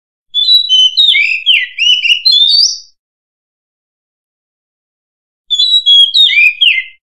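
Oriental magpie-robin singing: two phrases of quick, sliding whistled notes. The first lasts about two and a half seconds; the second starts about five and a half seconds in and lasts about a second and a half.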